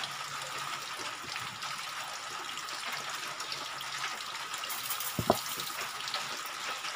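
Steady hiss of background noise under the light rustle of a plastic courier mailer being handled and cut open with scissors, with one sharp click a little past five seconds in.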